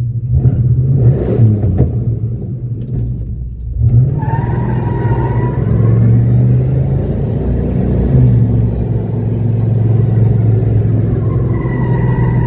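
Classic car's engine running hard under acceleration, heard from inside the cabin. A faint high whine comes in about four seconds in and again near the end.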